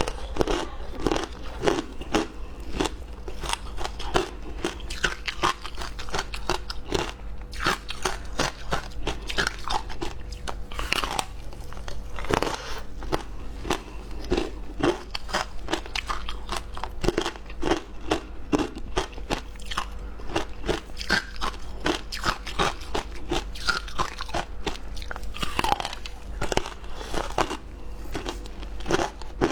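Flavoured frozen ice being bitten and chewed close to the microphone: a rapid, unbroken run of crisp cracks and crunches.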